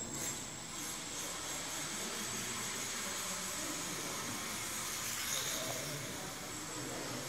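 Electric motor and 6x8 wooden racing propeller of a control-line model X-Wing fighter running steadily as the plane flies its circles, a steady hiss with a faint high whine, swelling slightly about five seconds in.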